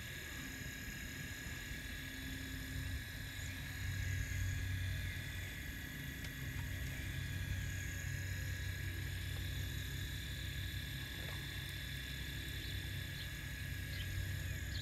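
Radio-controlled hydraulic excavator working: its pump runs with a steady low hum and a thin whine, getting louder about four seconds in and again near the end as the boom and bucket move.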